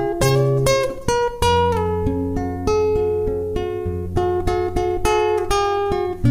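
Background music on acoustic guitar: picked notes, several a second, ringing over lower bass notes.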